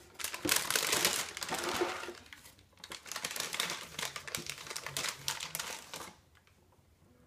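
Plastic and cardboard snack packaging crinkling and rustling as a toddler rummages through it, with a short pause about two and a half seconds in. It stops about six seconds in.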